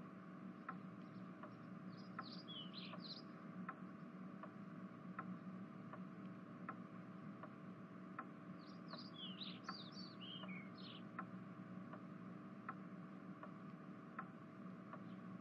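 Faint indoor ambience: a clock ticking steadily, about four ticks every three seconds, over a low hum. Birds chirp briefly twice, about two seconds in and again around nine to eleven seconds.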